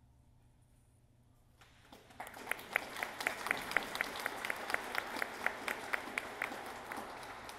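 Audience applauding, starting about a second and a half in and tapering off near the end, with one nearby person's claps standing out sharply at about four a second.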